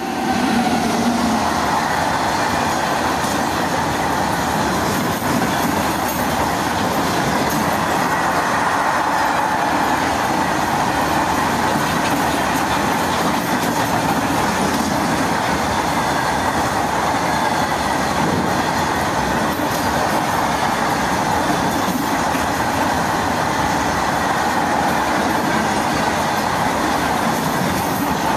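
Freight train of open box wagons, hauled by a WAG-9HC electric locomotive, passing close by at speed: a loud, steady rumble and rattle of wagons and wheels on the rails. It rises suddenly as the locomotive reaches the microphone and then holds even as the wagons roll past.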